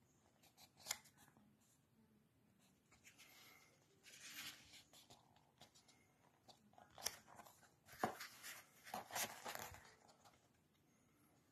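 Faint rustling and crinkling of paper as the pages of a paperback book are turned and handled, with a sharp tick about a second in, a rustle around four seconds in and a longer stretch of rustling from about eight to ten seconds in.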